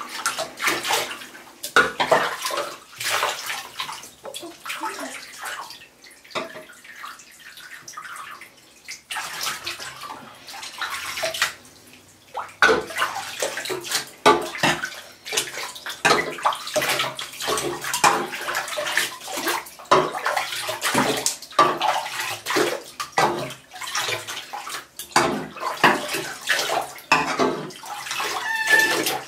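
Bathwater splashing and sloshing in a shallow tub as a cat is washed, with water scooped up and poured over it from a cup. It comes in irregular bursts, with a quieter spell about six to nine seconds in.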